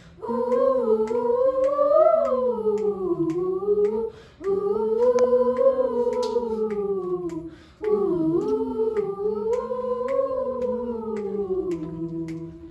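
Youth choir singing a wordless a cappella passage in harmony: three long phrases with short breaks between them.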